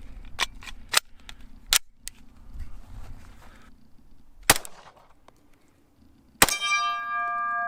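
Glock 21 pistol firing .45 ACP at steel: a few sharp shots, the loudest two about two seconds apart. The last hit sets the steel plate ringing, a clear held tone that carries on to the end.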